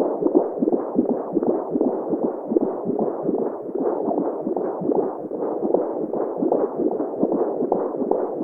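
Recreated womb sound: a muffled, whooshing noise with a steady, repeating heartbeat pulse running through it.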